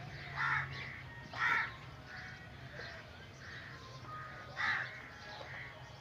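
Crows cawing: three loud, short caws, two close together about half a second and a second and a half in, and one more near the end, with fainter bird chirps between them over a steady low hum.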